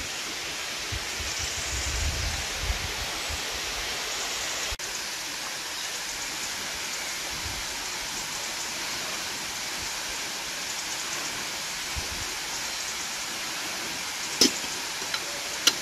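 Steady rain falling, an even hiss with no break. A few sharp clicks come near the end.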